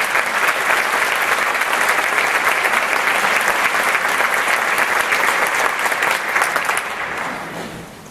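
Theatre audience applauding, a dense patter of many hands clapping that dies away near the end.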